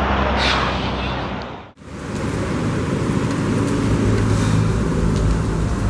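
A car passes on the wet road, its tyre hiss sweeping down in pitch. Then, after a cut, a steady hiss of heavy rain with a low rumble underneath.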